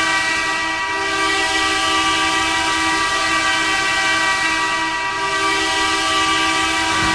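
Hockey arena goal horn sounding one long, steady blast, several tones at once.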